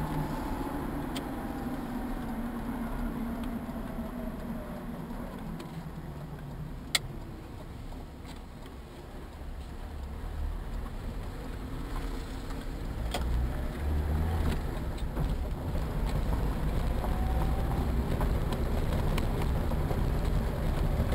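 A motor vehicle running, its engine note falling in pitch over the first few seconds. A low rumble grows louder in the second half, and there is one sharp click about seven seconds in.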